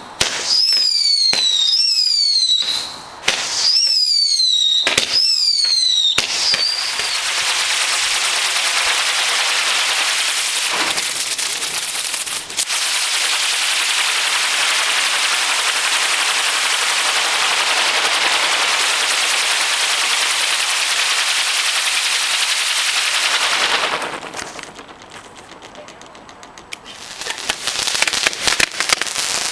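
Fireworks going off: several short whistles falling in pitch, cut by sharp bangs, over the first six seconds. Then a long steady hiss of a firework fountain spraying sparks, dying away about 24 seconds in, and crackling pops near the end.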